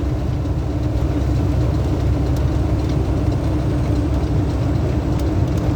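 Heavily loaded lumber truck driving, with a steady low engine drone and road rumble heard inside the cab and a constant hum running through it.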